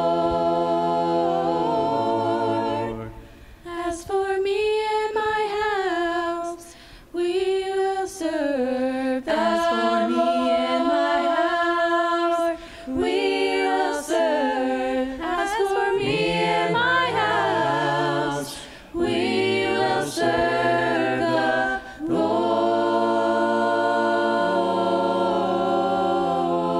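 Small mixed vocal group of men's and women's voices singing a gospel song a cappella through handheld microphones, with low men's notes under the women's melody. The song closes on a long held chord near the end.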